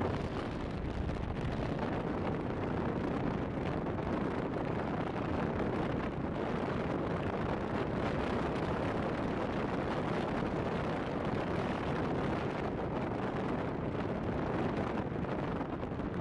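Steady wind noise on the microphone of a moving motorcycle, with the bike's engine and tyre noise on the road beneath it.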